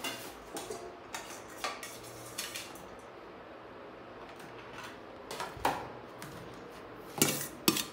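Metal spoons clinking and scraping against stainless-steel plates, pots and a colander as food is served, in scattered light knocks. There are a few sharper clinks near the end.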